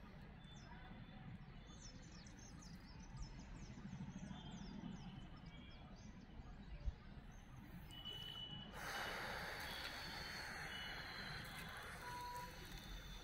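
Faint outdoor ambience. A bird chirps in a quick run of short high notes in the first few seconds, and a broad rushing noise, wind or leaf rustle on the microphone, comes in about nine seconds in and holds until near the end.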